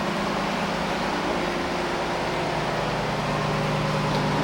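Steady electric motor hum with a few low droning tones that hold level.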